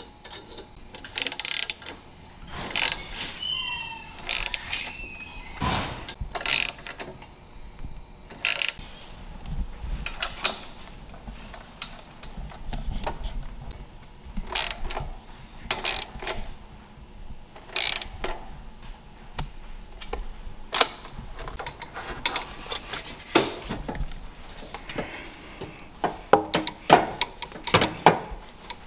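Hand socket ratchet clicking in short runs as bolts are tightened, mixed with irregular knocks and clatter of tools and metal parts while front-mount intercooler brackets and piping are fitted.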